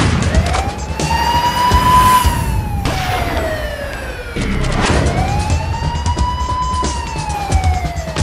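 A siren sound effect wailing: its pitch rises quickly and then falls slowly, twice, each cycle about four seconds long, with a couple of sharp hits under it.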